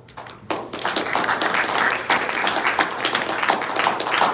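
Audience applauding: the clapping begins at once, swells to a full, loud round within the first second, and then holds steady.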